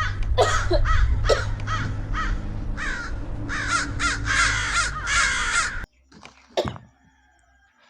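Harsh crow-like cawing, many short calls in quick succession and overlapping, over a low steady hum. It cuts off suddenly about six seconds in, leaving only a couple of faint short sounds.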